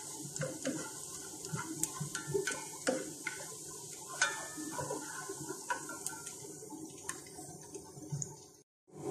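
Wooden spatula stirring chopped onion in oil in a stone-coated frying pan, knocking and scraping against the pan in irregular taps over a faint steady sizzle. The sound cuts off suddenly near the end.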